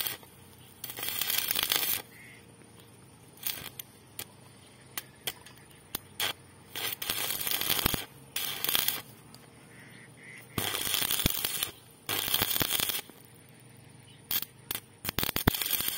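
Stick (arc) welding of a joint in a metal pipe. The arc crackles in bursts of about a second, struck and broken again and again with short pauses between, plus a few sharp clicks.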